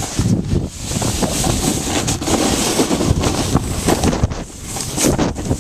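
Snowboard riding and sliding through snow, a loud rough rushing and scraping, with wind buffeting the handheld camera's microphone. The noise dips briefly about four seconds in.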